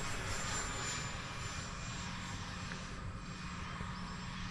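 Electric ducted fan of a Freewing Intruder RC jet (AvantiS v2 fan and motor) running at full throttle in flight: a steady rush of air with a thin high whine that drops slightly in pitch and fades about a second in.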